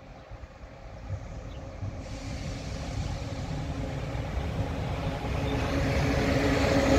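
Electric-hauled freight train approaching on the rails, its rumble growing steadily louder, with a steady hum coming up out of it toward the end.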